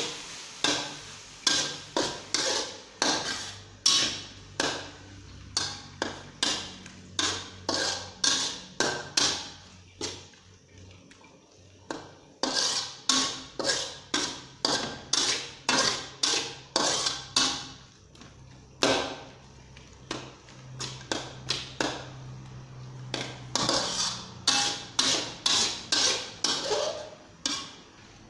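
Metal spatula scraping and knocking against a metal wok while stir-frying, in quick strokes about two a second, with two short pauses.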